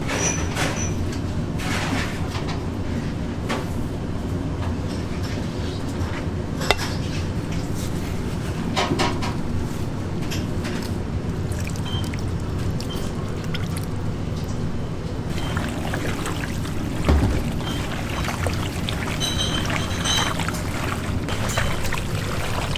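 Dark sauce poured from a bowl over raw chicken pieces in a large aluminium basin, with wet pouring sounds and a couple of sharp knocks of bowl on metal, over a steady background hum.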